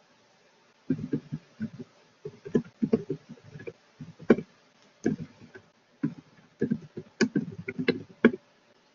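Typing on a computer keyboard: quick runs of key clicks with short pauses between, starting about a second in.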